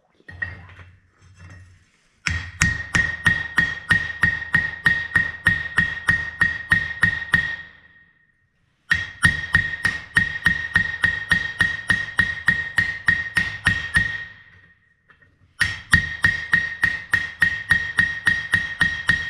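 Blacksmith's hand hammer striking hot steel on an anvil in three runs of steady blows, about three a second, each blow followed by a high ringing note from the anvil. A few lighter taps come first.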